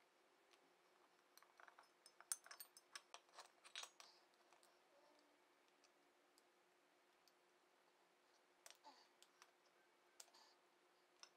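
Faint clicks and light taps over a faint steady hum: a quick cluster in the first few seconds, then a few scattered ones later.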